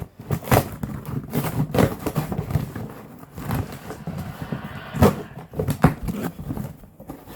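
A duct-taped cardboard box being opened and unpacked: irregular rustling, scraping and knocks of tape, cardboard and packing.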